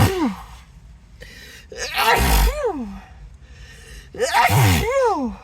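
A person sneezing over and over in a fit. The end of one sneeze is at the very start, then come two full sneezes about two and a half seconds apart. Each is a loud, sudden blast of breath with a falling voiced cry.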